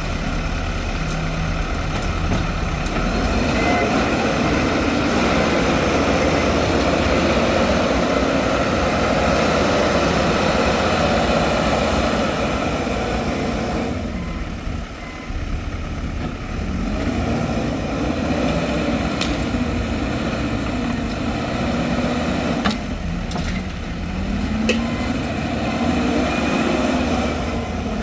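Diesel engines of heavy earthmoving machinery running and revving up and down, with a brief lull about halfway and a couple of sharp knocks near the end.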